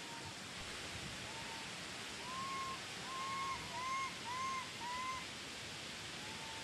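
An animal calling: a run of short, clear calls, each rising and then falling in pitch, about two a second and loudest in the middle of the run, over a steady outdoor hiss.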